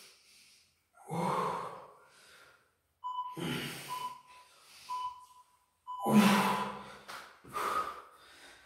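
Heavy, gasping breaths of a man straining through reverse crunches, a hard exhale every second or two, the loudest about six seconds in. Four short high beeps about a second apart, a countdown timer marking the end of the set, sound in the middle.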